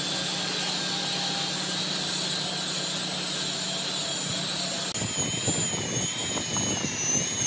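Angle grinder with a sanding disc running steadily while sanding the face of a large wooden slab. About five seconds in the sound changes to a whine that wavers in pitch over rougher, uneven scraping as the disc is pressed and moved across the wood.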